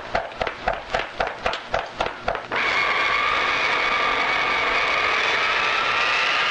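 Rapid, even ticking, about four a second, that stops abruptly about two and a half seconds in. A steady rushing noise takes over, with a whine slowly rising in pitch.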